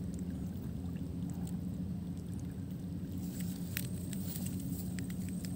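Steady low background hum with a few faint, sharp clicks scattered through the second half; no firecracker goes off.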